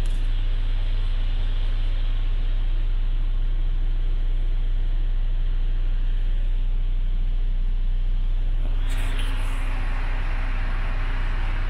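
MAN TGX 26.440's common-rail 440 bhp turbo diesel engine running steadily at idle, heard from inside the cab as a low, even drone. About nine seconds in, a rushing hiss starts and rises over it.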